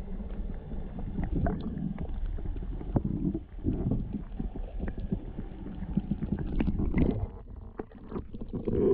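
Muffled underwater sloshing and low rumble with many small knocks and clicks, heard through an action camera's waterproof housing as it is moved about in the lake water.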